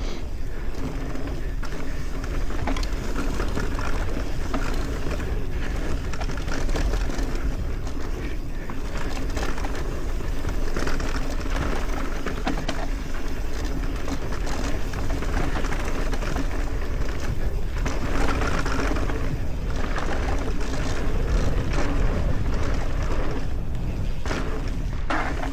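Mountain bike descending a dirt trail: a steady rush of wind and tyre noise, with the bike rattling and knocking over bumps throughout.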